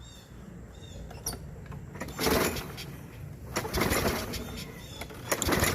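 Briggs & Stratton 190cc push-mower engine being pull-started three times, about a second and a half apart, each pull spinning it over briefly on starting fluid without it staying running. Birds chirp faintly between pulls.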